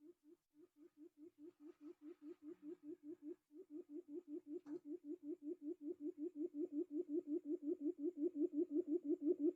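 Quail lure call: a low, hooting note repeated about four to five times a second, getting steadily louder, with a short break about three and a half seconds in.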